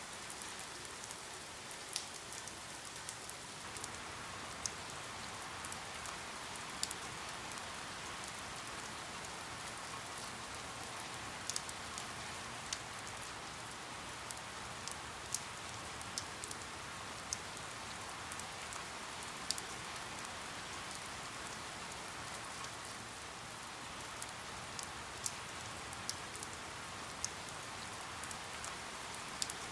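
Steady rainfall: an even hiss of rain with sharp, irregular drop ticks scattered through it.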